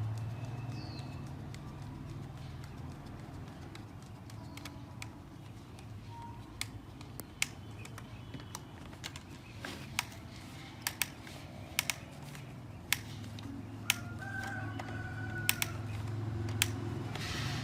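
Scattered sharp clicks and light taps, about a dozen of them from a third of the way in, as small parts and hand tools are handled while a concrete drill is assembled, over a steady low hum; a few faint bird chirps sound in the background.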